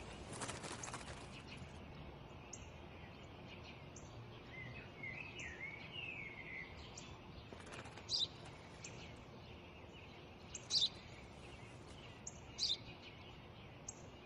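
Sparrow chirping in short, sharp, single chirps about every two seconds, with a brief warbling bird phrase about five seconds in, over a steady faint outdoor hiss.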